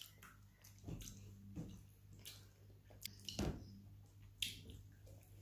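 Quiet eating sounds: scattered short wet clicks and smacks of chewing and of fingers mixing rice on a steel plate, the loudest about three and a half seconds in, over a low steady hum.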